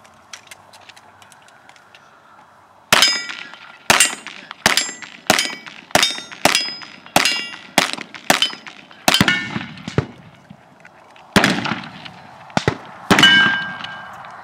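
A fast string of about fifteen gunshots, roughly two a second at first and then more spaced, starting about three seconds in. Many shots carry a short bright metallic ring, from steel targets being hit.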